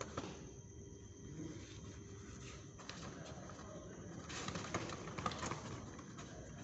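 Thuds and scuffs of barefoot pencak silat fighters stepping, kicking and striking on foam floor mats, with a quick flurry of knocks about four to five and a half seconds in, over low background noise.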